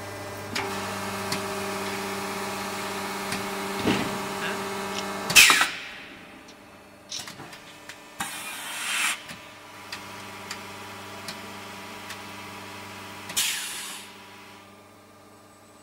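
Hydraulic extrusion blow molding machine running through its cycle: a steady pump-and-motor hum with a few mechanical clicks, broken three times by loud hisses of air. The longest hiss lasts about a second, near the middle.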